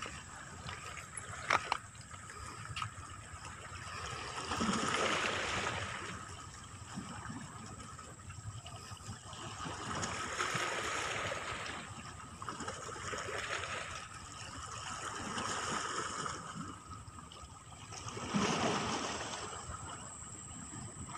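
Small waves washing against shoreline rocks, swelling and fading every few seconds, with a sharp click about one and a half seconds in.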